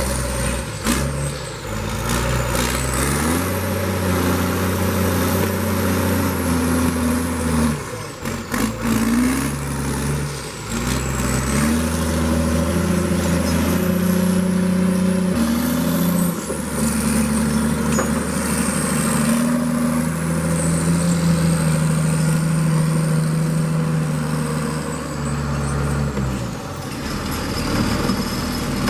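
Diesel engine of heavy logging equipment working under varying throttle, its pitch stepping up and down again and again, with a thin high whine rising and falling along with it.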